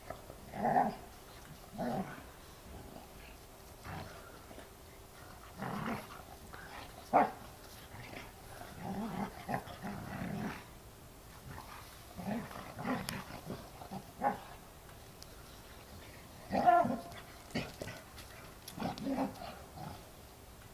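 A Weimaraner and a French Bulldog puppy play-fighting, giving short growls in irregular bursts every second or few, the loudest about seven seconds in and again about seventeen seconds in.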